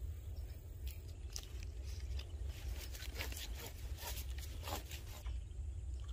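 Close handling noise: irregular rustling, scraping and clicking as hands bait a hook and take up a fishing rod, over a steady low rumble.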